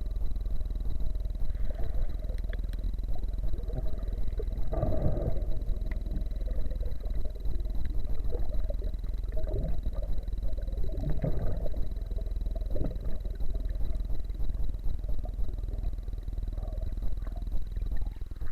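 Muffled underwater sound picked up by a camera in a waterproof housing: a steady low rumble, with a faint constant whine and a few louder gurgling swells about five, eleven and thirteen seconds in.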